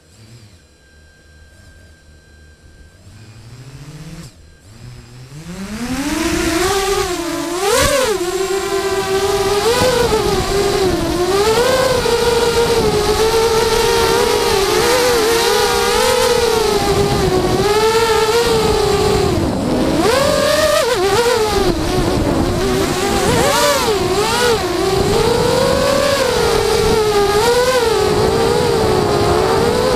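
QAV210 racing quadcopter's motors, on 3S with 5045 bullnose props, spinning up from rest with a steeply rising whine about four seconds in. They then run loud through the flight, the whine rising and falling as the throttle changes, heard from the quad's onboard camera.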